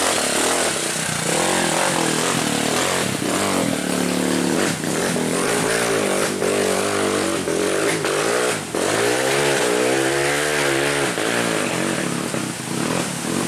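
Off-road trail motorcycle engines revving repeatedly, their pitch rising and falling, with more than one engine overlapping in the middle.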